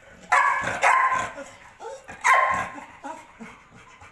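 Adult Belgian Malinois barking in short loud bursts: a cluster of barks about a second in and another a little past two seconds.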